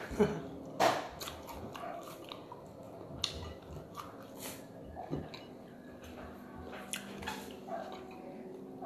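A person chewing a mouthful of food eaten by hand, with scattered small mouth clicks and smacks, two of them louder within the first second.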